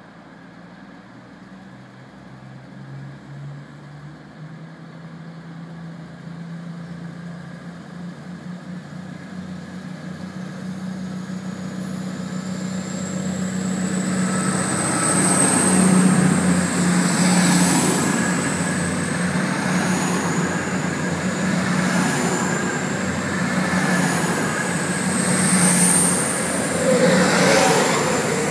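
East Midlands Trains Class 222 Meridian diesel-electric multiple unit, with underfloor diesel engines, approaching and running along the platform. A steady low engine drone and a high whine grow louder over the first half. Once the cars are alongside, a rhythmic clatter of wheels over the track joins in, about once a second.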